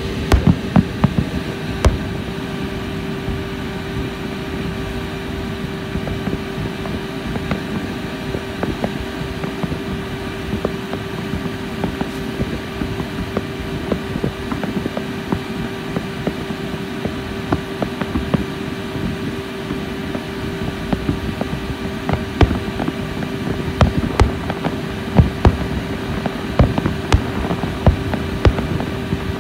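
Fireworks bursting with sharp bangs over a steady hum from a boat's engine. The bangs come thickest near the start and again in the last several seconds.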